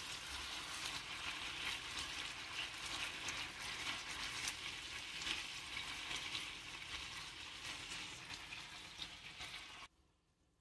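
Marinated beef bulgogi sizzling and crackling in a hot grill pan as it is turned with tongs; the sizzle cuts off suddenly near the end.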